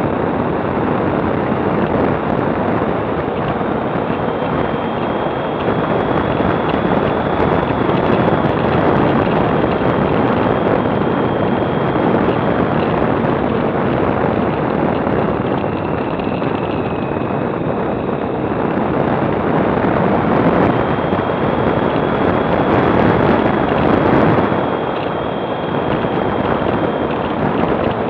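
Wind rushing over the microphone of a camera on a moving motorcycle, a heavy steady rush that swells twice, with the bike running underneath. A faint high whine comes and goes.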